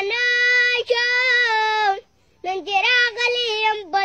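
A young boy singing unaccompanied in a high voice, holding long, wavering notes. He breaks off about two seconds in and starts the next line half a second later.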